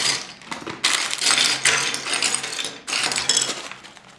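Small plastic LEGO pieces rattling and clicking inside a crinkly plastic bag as it is handled, in three bursts of about a second each.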